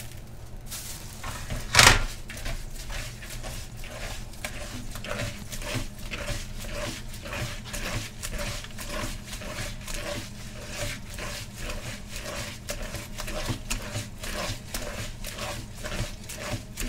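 Hand kneading and stirring raw shucked oysters with coarse salt in a plastic colander: wet squishing and scraping strokes repeated a few times a second. One louder sharp knock or rustle about two seconds in.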